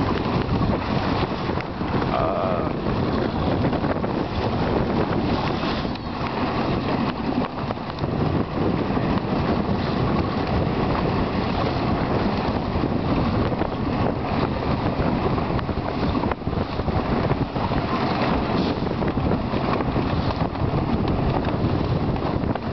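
Wind buffeting the microphone over the rush of water around a small motor boat running under power, a steady dense roar with no breaks.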